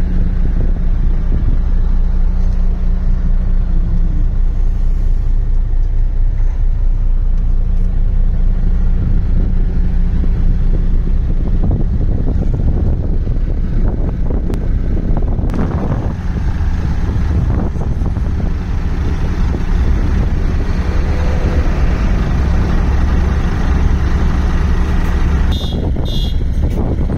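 MAN TGS 26.480 truck's straight-six diesel engine idling steadily.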